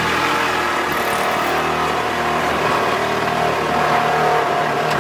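A compact cordless power tool cutting into the sheet metal of a car's rear quarter panel along the wheel arch. The motor runs loud and steady, then cuts off suddenly at the very end.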